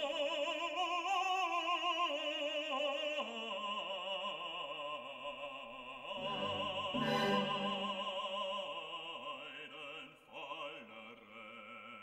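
Background music: a classical piece with an operatic voice singing a slow melody with wide vibrato over orchestral accompaniment, growing quieter near the end.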